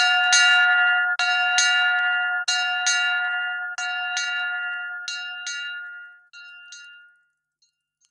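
A bell rung as an alarm after the cry of "Feurio", sounding in pairs of strokes about every 1.3 seconds. The strokes get steadily fainter and die away about seven seconds in.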